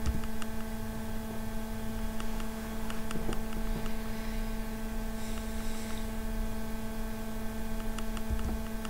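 Steady electrical mains hum with a few overtones, and a few faint clicks.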